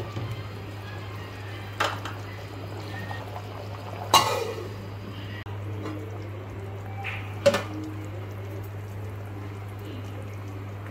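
Beef curry boiling in a pot, a steady wet bubbling over a low constant hum. Three sharp clinks of cookware come about two, four and seven and a half seconds in; the middle one is the loudest and rings briefly.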